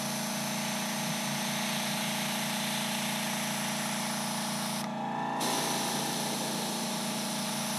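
Airbrush hissing steadily as it sprays weathering paint along a model's panel lines, over a steady low hum. The hiss cuts out for about half a second around five seconds in, then resumes.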